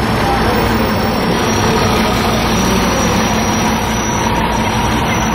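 City street traffic noise: a steady rumble of idling and passing cars and other road vehicles, with a faint high steady whine.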